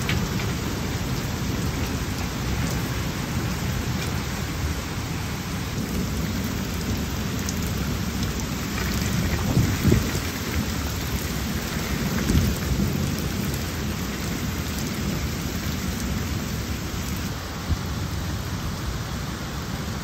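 Heavy rain pouring down in a windy thunderstorm, a steady hiss of rain on the ground and foliage. Low rumbling surges come from the wind or thunder, strongest about halfway through.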